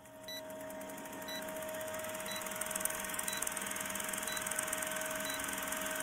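Old film-projector countdown sound effect: steady projector whirr and rapid clatter over film hiss, with a short beep about once a second as the numbers count down.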